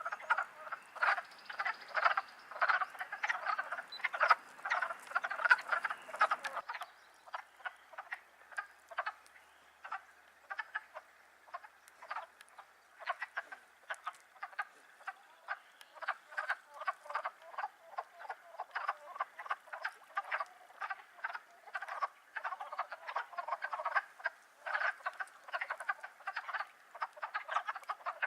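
Chorus of frogs calling in spring, many short croaks overlapping at several a second.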